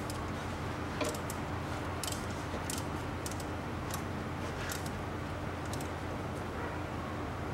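Light, irregular metallic clicks as the fill plug of the Ford Explorer's transfer case is screwed in by a gloved hand, over a steady low hum.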